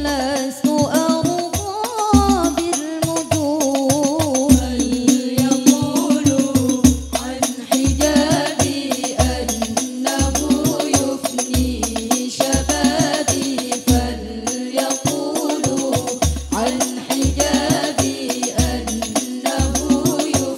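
Banjari-style sholawat: a group of women singing a melody together into microphones over rebana hand drums, with a deep bass drum hitting about once a second.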